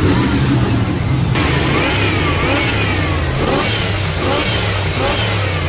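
Chevy throttle-body-injected engine idling steadily, settled back to a normal idle with its rebuilt injector pod sealing and running well. About a second in, a hiss and a repeated high chirping join it.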